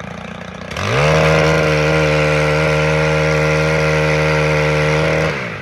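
Powered pole saw cutting an overhead branch in a hazelnut tree. Its motor spins up quickly about a second in, runs at a steady pitch for about four seconds, then winds down near the end.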